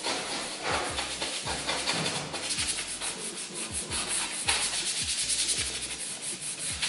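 A floor scrubbed by hand, first with a cloth and then with a small handled scrub brush, in repeated rubbing strokes. Background music with a steady beat plays underneath.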